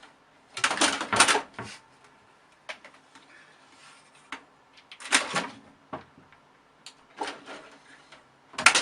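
Irregular knocks and clatters, like hard objects being bumped or handled, coming in small clusters with quiet gaps between them.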